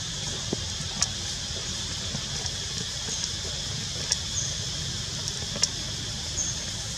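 Outdoor forest ambience: a steady high hiss over a low rumble, broken by a few sharp clicks and some faint short high chirps.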